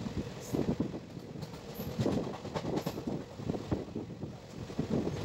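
Triveni Express passenger train running at speed, its coach wheels clattering irregularly on the track, heard from the coach's open door.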